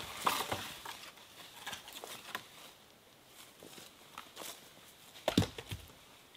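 Footsteps crunching on dry leaf litter as a long dead branch is dragged over the forest floor, its twigs crackling and scraping. A heavier thump comes about five seconds in, as the branch is set down.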